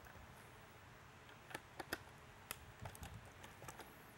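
Faint, scattered clicks and ticks of a screwdriver working the rear screws out of a polycarbonate siren/speaker housing, with a handful of sharper clicks in the middle.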